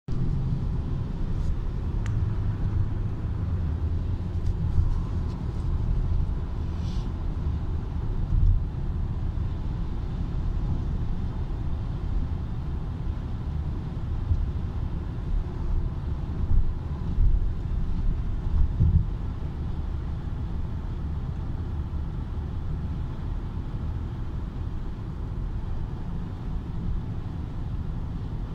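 Steady low rumble of road and engine noise inside a moving car's cabin, with a few brief louder bumps.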